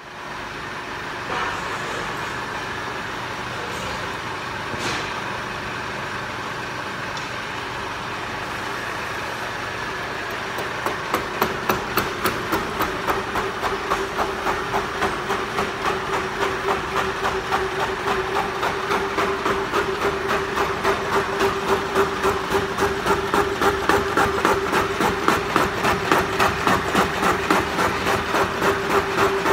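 Horizontal boring machine cutting a large steel workpiece, running with a steady mechanical hum. From about ten seconds in, a rhythmic pulsing of roughly three beats a second sets in over a steady tone as the tool cuts.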